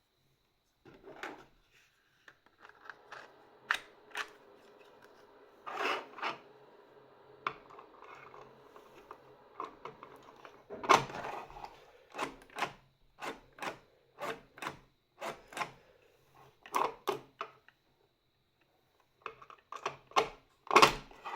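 Giant 3D-printed plastic keyboard switch (linear, PLA housing and stem) being pressed down and let spring back again and again: sharp plastic clacks, mostly in pairs a fraction of a second apart. A faint rubbing sound comes between the clacks in the first half.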